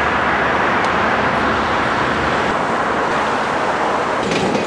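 City street traffic: a steady wash of road noise from passing vehicles.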